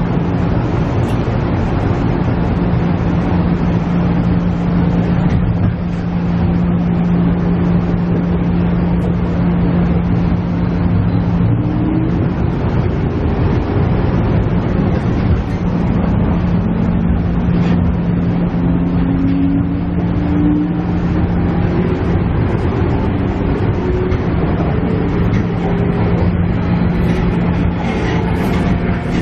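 Inside a KiHa E130 diesel railcar on the move: the diesel engine's steady drone over constant running noise from the wheels and rails. About two-thirds of the way through, several tones rise slowly in pitch.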